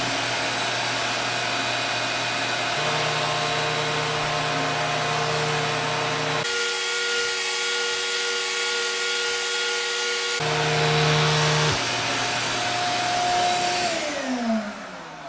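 Vacuum cleaner driving a Flowbee hair-cutting attachment, running steadily with its hum shifting for a few seconds midway while the head pulls hair into it. This is a trial pass with a long spacer, meant to take no hair. Near the end it is switched off and winds down in a falling whine.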